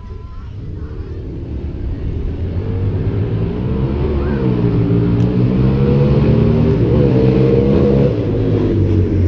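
An engine running and growing louder over several seconds, its pitch slowly rising and falling.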